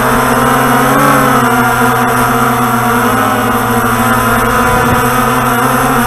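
Walkera Tali H500 hexacopter's six electric motors and propellers buzzing steadily in flight as it descends, several tones together, with the pitch shifting briefly about a second in as the throttle changes.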